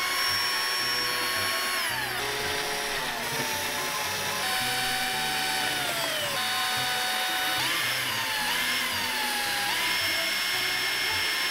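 Cordless drill with a wire whisk attachment whipping cream in a glass bowl. The motor whines steadily, dropping and rising in pitch several times as its speed changes.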